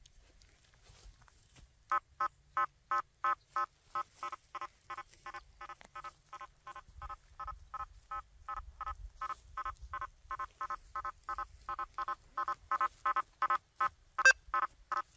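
Quest V80 metal detector giving a run of short, evenly spaced beeps, about three a second, as its 9-inch coil passes over a nailboard test; the beeps grow louder near the end, with one sharp loud click.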